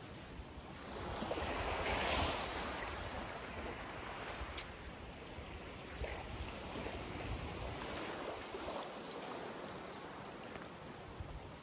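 Small waves lapping on a sandy shore: a wavelet breaks about a second in and swells to a peak, then the wash runs over the sand with scattered small crackles and eases off near the end.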